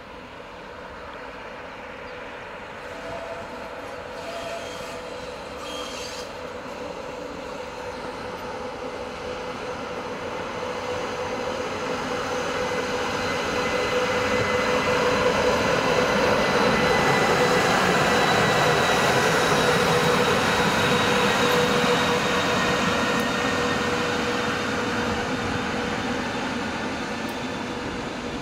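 Several electric locomotives coupled together running past on the rails: a rumble of wheels on track with a steady whine, growing louder to a peak a little past halfway and then fading as they move away.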